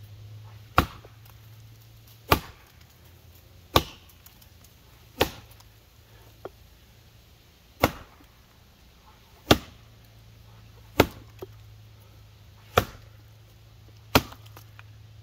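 Council Tool FE-6 felling axe, reground thin, chopping into a standing maple block: nine sharp, ringing strikes about one and a half seconds apart.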